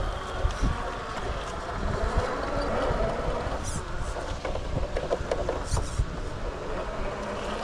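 Radio-controlled rock crawler's electric motor and gears whining as it drives, with a few clicks and wind buffeting the microphone.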